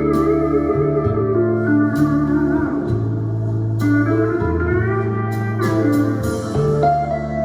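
Music played back through Fleetwood Sound Deville horn speakers: an instrumental passage, guitar with gliding notes over steady, changing bass notes, without singing.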